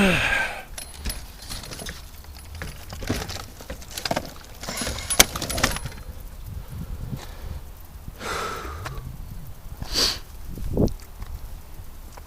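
Scattered handling noises: irregular clicks, knocks and short rustles, with no engine running.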